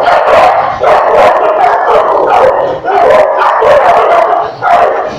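A dog barking loudly and repeatedly in quick runs, with short pauses between them.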